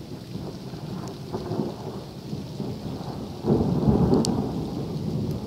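Thunder rumbling in heavy rain, swelling into a much louder, deep peal about three and a half seconds in, which sounded directly overhead to the person filming.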